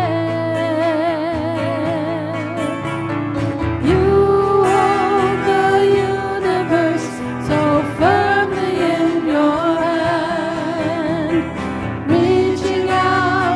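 A slow worship song: a voice sings long held notes with vibrato, in phrases about every four seconds, over guitar accompaniment.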